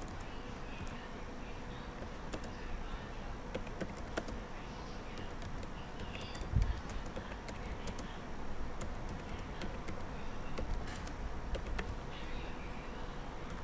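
Irregular keystrokes on a computer keyboard as a sentence is typed, over a steady low hum. A single dull thump comes about six and a half seconds in.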